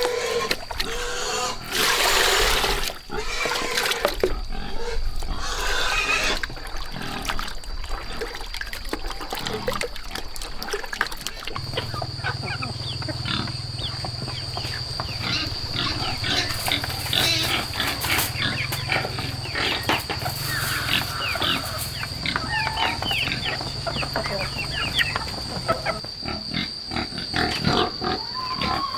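Farm animals calling, with many short calls and clicks. A steady high whine sets in about halfway through.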